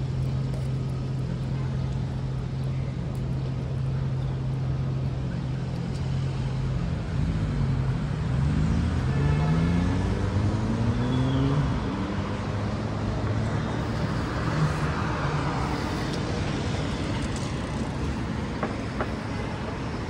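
City street traffic: a vehicle engine runs with a steady low drone, then revs up with a rising pitch as it pulls away, from about seven to twelve seconds in. Traffic noise swells after it as other vehicles pass.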